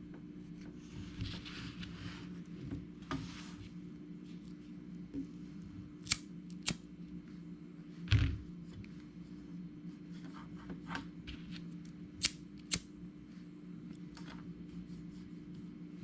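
Sharp clicks and short rustles from small objects being handled, over a steady low hum, with a dull thump about eight seconds in.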